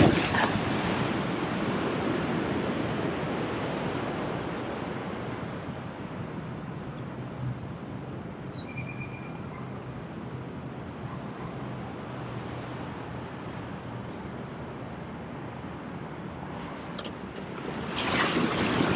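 Sea surf on the shore: a wave washing in as it opens, fading to a steady low wash of water, then another wave breaking near the end.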